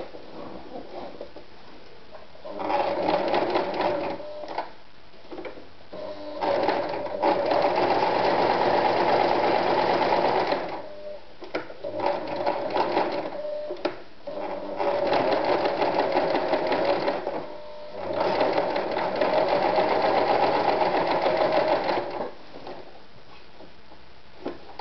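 AEG NM 376 B electric sewing machine stitching test rows, running in several spells of a few seconds each with short stops between them.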